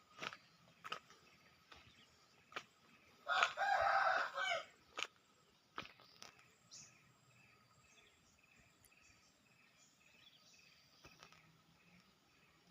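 A rooster crowing once, about a second and a half long, a few seconds in, over scattered faint clicks. Later a faint chirp repeats about twice a second.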